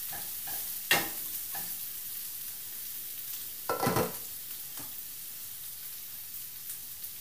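Garlic, ginger and red onion sizzling steadily in a little oil in a nonstick frying pan, with a utensil stirring and knocking against the pan, two sharp knocks standing out, about a second in and about four seconds in.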